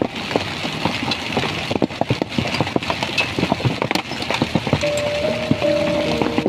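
Heavy rain: a steady hiss with many irregular taps of drops striking a hard surface. About five seconds in, a melody starts over it.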